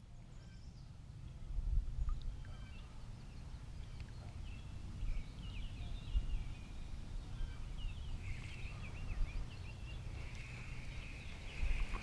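Many small birds chirping and chattering, with the calls growing denser in the second half, over a steady low rumble.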